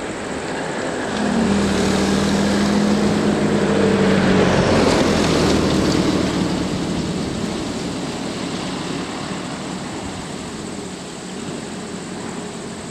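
A car drives past close by: engine hum and tyre noise build to a peak about five seconds in, then fade away.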